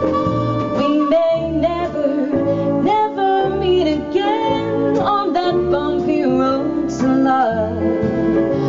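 A small jazz band playing a swing number live, with low bass notes about twice a second under a female singer's gliding vocal line.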